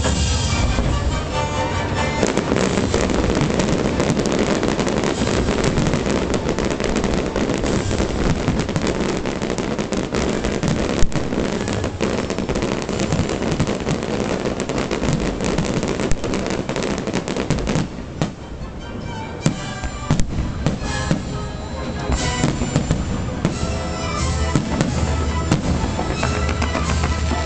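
Fireworks going off in a dense run of crackling and popping, with one louder bang about eleven seconds in, over music. Past the middle the crackle thins out and scattered bangs sound over the music.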